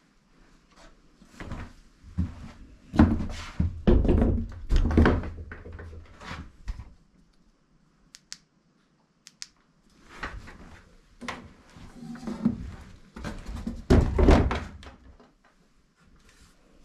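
A run of heavy, irregular thuds and knocks on wood, then a pause with two sharp clicks, then another run of thuds and knocks.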